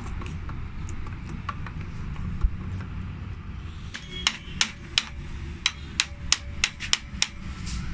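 Sharp metal-on-metal taps on diesel injection pump parts during reassembly, about ten of them, unevenly spaced, from about four seconds in, over a steady low rumble.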